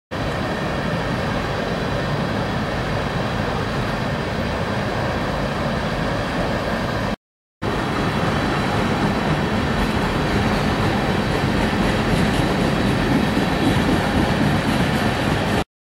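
Freight train of tank cars rolling steadily past, a continuous noise of steel wheels on the rails. The sound cuts out briefly about seven seconds in, then the same steady train noise resumes.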